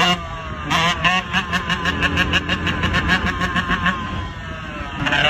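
Dirt bike engine revving under throttle as the rider holds a wheelie, its note pulsing quickly and evenly.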